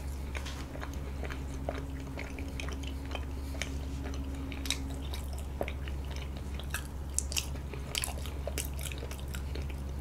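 Close-miked chewing of soft half-moon rice cakes (bandal-tteok): scattered small, wet mouth clicks and squelches over a steady low hum.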